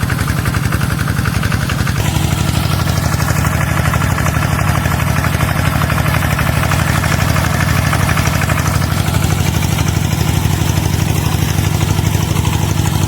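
Small engine of a homemade self-propelled rice-field sprayer running steadily as the machine moves slowly along, with a change in its note about two seconds in.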